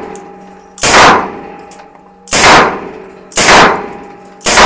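Sterling L2A3 9×19 mm submachine gun fired in single shots: four sharp shots roughly a second apart, each followed by a short ringing decay in an indoor range.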